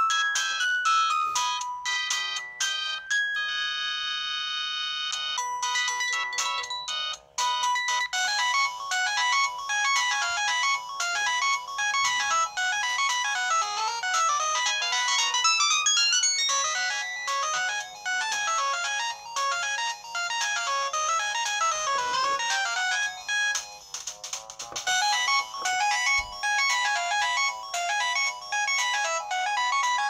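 Samsung SGH-C520 clamshell phone playing its built-in polyphonic ringtones (Yamaha SMAF synth tunes) through its small speaker, one tune after another. The tune changes several times: a short held chord about three seconds in, a new melody soon after, then a busy tune of quick notes from about eight seconds on.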